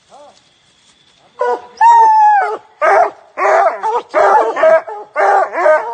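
Hound baying at the foot of a tree: one long bawl falling in pitch about two seconds in, then a quick run of short barks. Barking at a tree like this is a hunting hound's sign that it has treed its quarry.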